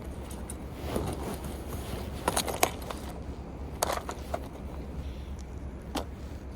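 Steady low rumble with a few sharp clicks and knocks scattered through it, the loudest about two and a half seconds in.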